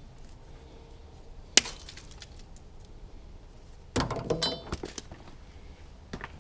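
Metal striking metal while working on battery cables: one sharp strike, then about a second of clinking and clattering with a brief high ring near the end.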